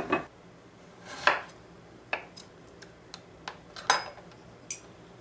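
A lemon set down and sliced on a bamboo cutting board with a German steel utility knife: a short scraping cut about a second in, then a series of light clicks and knocks of blade and lemon on the board, the loudest near four seconds.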